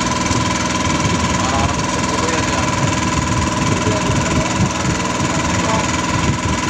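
A small engine running steadily and close, with an even throb and a thin steady high tone over it.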